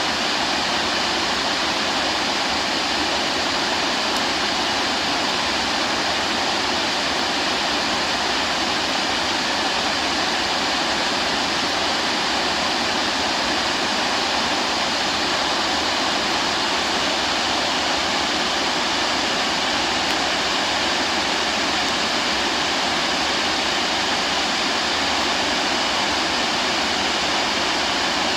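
Steady rush of a waterfall, an even wash of falling water with no breaks or changes.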